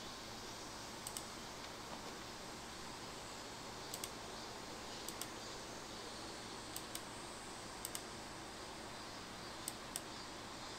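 Computer mouse clicking in pairs, about six pairs a second or two apart, over a steady faint hiss.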